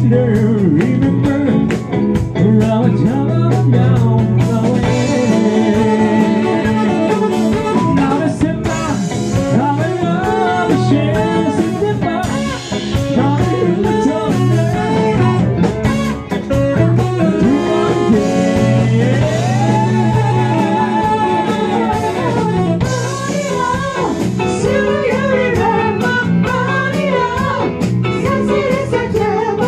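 A pop song playing: a singing voice over guitar and a drum kit, with a steady beat.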